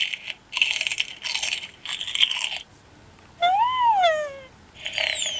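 Electronic toy guinea pig's speaker playing stylized munching sounds, three crunchy bursts in a row as its plastic celery presses the button in its mouth. About three and a half seconds in comes a squeak that rises and falls in pitch. Near the end another crunch comes with a falling whistle.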